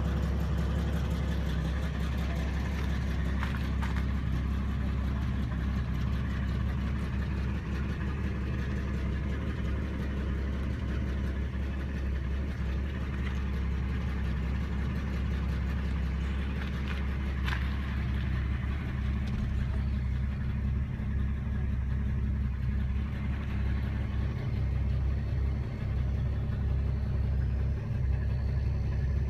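A 1964½ Ford Mustang's engine idling steadily, a low, even hum with no revving.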